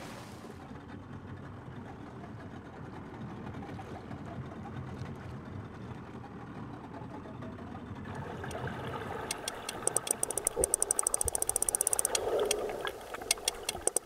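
Low steady rumble, then from about eight seconds in sperm whale clicks heard underwater, in quick trains of sharp clicks that grow louder and faster toward the end.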